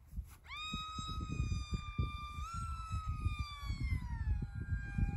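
High whine of the RC jet's Flite Test 2207 brushless motor spinning a small four-blade prop. It rises quickly to a steady pitch about half a second in, steps up about halfway through, then slowly falls in pitch. A gusty low rumble of wind on the microphone runs underneath.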